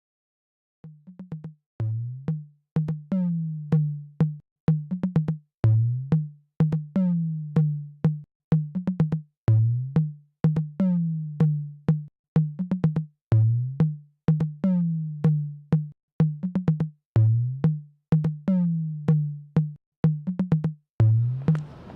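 Electronic drum-machine beat: deep kick drums that drop in pitch, interleaved with sharp clicks in a repeating pattern, starting about a second in.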